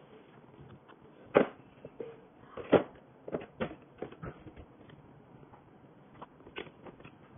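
A drawer being fitted into a table frame and onto its slides: two sharp knocks about a second and a half and nearly three seconds in, then a run of lighter clicks and taps as it is lined up and pushed along the slides, with a few more taps near the end.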